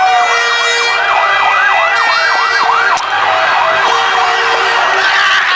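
A yelping siren wail, rising and falling about four times a second and fading near the end, over the din of a celebrating crowd.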